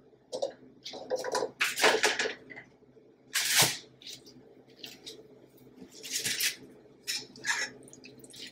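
A spoon scooping cooked sweet peas out of their cooking liquid in a saucepan: irregular wet scrapes, drips and splashes, the loudest about three and a half seconds in.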